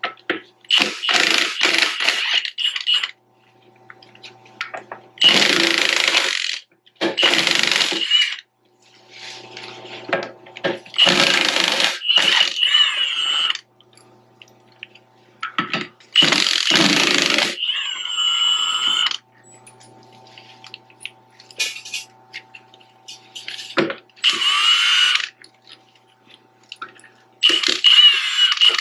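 A power tool run in repeated bursts of one to three seconds each, with short pauses between them and a faint steady hum in the gaps.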